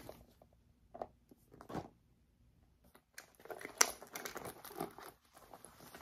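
Bags being handled: scattered rustling and crinkling, thickening in the second half, with one sharp click a little under four seconds in.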